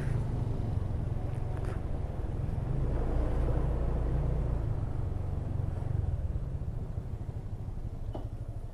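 Small motorcycle engine running at low speed, with wind and road noise from the ride, a steady low rumble. It eases off near the end as the bike slows.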